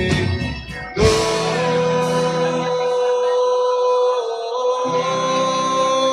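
Live rock band music with a male singer holding one long sustained note from about a second in, over guitar and the band.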